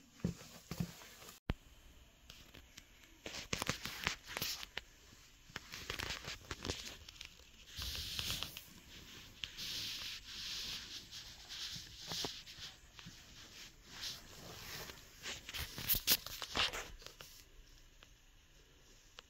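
Rubber-soled Salomon XA Pro 3D GTX trail shoes scuffing and tapping on a cork floor: a string of short soft taps and rustling scrapes, busiest through the middle and dying down near the end.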